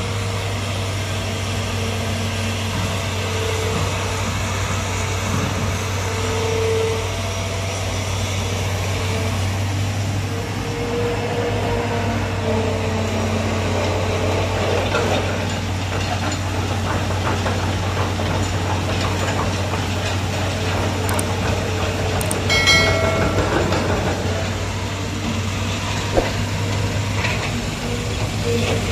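Heavy diesel machinery of a sand pit, excavators and dump trucks, running with a steady low engine drone. A short high-pitched tone sounds once, about two-thirds of the way through, and a single sharp knock comes a little later.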